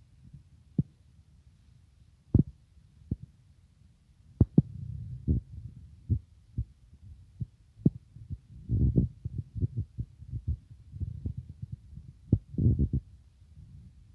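Irregular low thumps and knocks over a low rumble, more than a dozen of them: handling and bumping noise as objects are picked up and passed across the bed.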